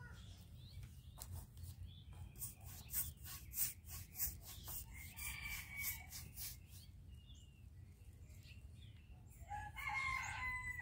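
Faint scratchy strokes of paint being spread over a wooden board, a quick run of swipes a few times a second. Chickens are heard in the background, with a rooster crowing near the end.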